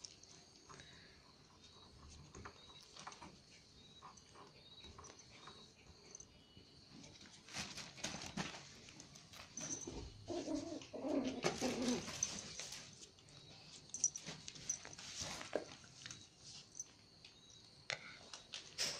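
Pomeranian puppies play-fighting on newspaper: paper rustling and paws scrabbling in short bursts, busiest in the middle. About halfway through comes a brief bout of low puppy growling.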